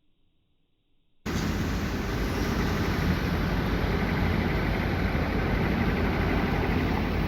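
Near silence for about a second, then a sudden cut to a steady, loud rumble and hiss of road traffic.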